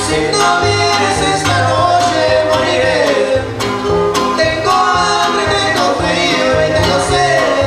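Huasteco string trio playing live: a violin carries the melody over steadily strummed jarana and huapanguera, with a man singing.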